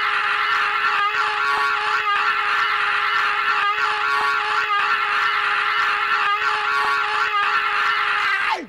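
A single loud note held at one steady pitch with overtones, cutting off suddenly near the end.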